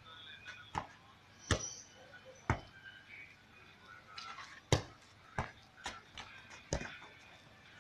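Football being played by two people in a control drill: sharp thuds of touches on the ball, about seven at irregular intervals, the loudest a little before five seconds in.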